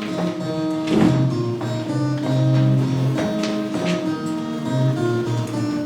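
Guitar playing the instrumental introduction to a song: held, ringing bass and chord notes, with a few chords strummed across the strings.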